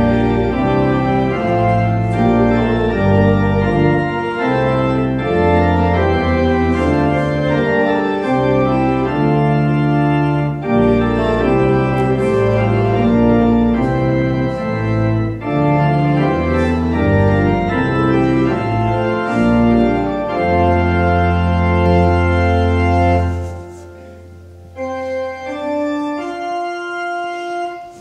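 Church organ playing offertory music: sustained chords over a low bass line, changing every second or so. About 23 seconds in it drops to a soft held chord.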